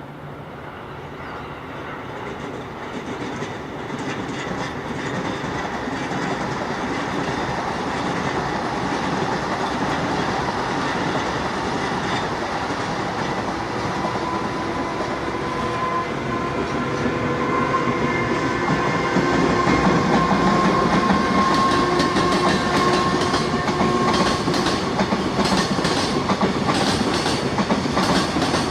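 Electric train approaching along the line, growing steadily louder with a steady whine, then its wheels clicking rhythmically over the rail joints as it passes near the end.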